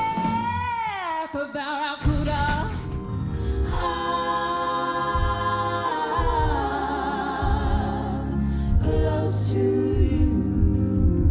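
Live pop-rock music: a woman singing with a band and backing vocals. A long high held note slides down about a second in, the music dips briefly, then the singing picks up again over a steady drum beat.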